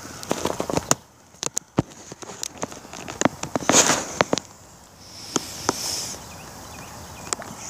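Footsteps crunching on a thin icy crust of snow: irregular sharp crunches and crackles, with a quieter stretch about a second in.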